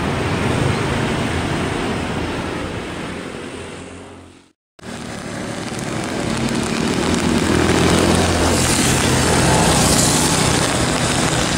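Jakarta–Bandung high-speed inspection train running past at speed, its rushing noise fading away; after a sudden cut to silence the sound of an approaching train builds up, loudest about two-thirds of the way through, then eases slightly.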